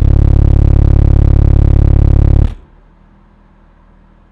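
Car subwoofers playing a loud 35 Hz test tone, driven by two C2 Audio Recon 1.6 amplifiers during a clamp test. The tone holds steady with a fast pulsing in level, then cuts off suddenly about two and a half seconds in.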